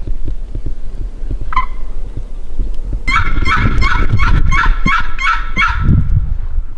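Wild Merriam's turkey gobbling from the roost. One short note comes about a second and a half in, then a rapid rattling run of gobble notes for about three seconds.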